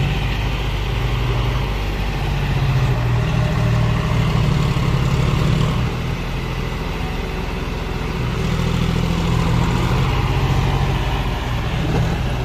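John Deere 5105 tractor's three-cylinder diesel engine labouring under load as it pulls a fully loaded soil trolley, a steady low engine note that swells a little now and then.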